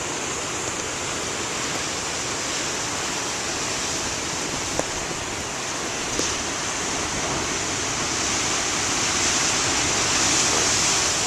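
Heavy ocean surf whipped up by a nor'easter, a steady rushing roar of breaking water that swells louder about nine seconds in.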